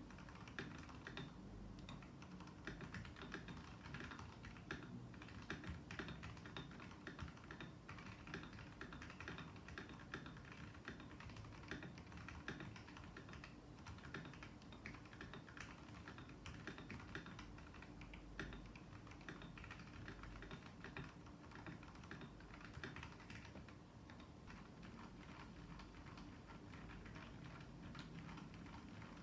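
Continuous typing on a mechanical keyboard with Kailh Box Red linear switches lubed with Krytox 205g0: a dense, irregular stream of keystroke clacks throughout.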